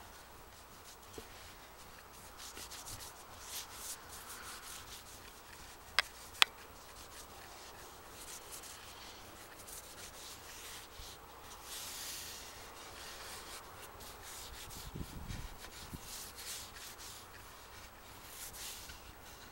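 Cloth rag rubbing along a wooden walking stick in repeated faint strokes, wiping back excess boiled linseed oil. Two sharp clicks, a little under half a second apart, come about six seconds in.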